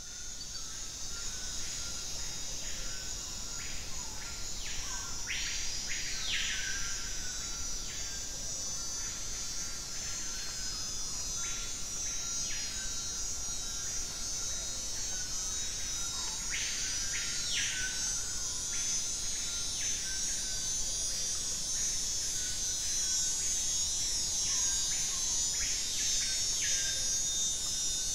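Tropical rainforest insect chorus: a steady, high-pitched buzzing drone, with short repeated chirping calls over it and two longer drawn-out calls, about six and seventeen seconds in.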